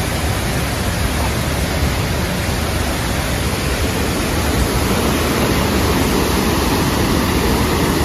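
Steady roar of rushing river water.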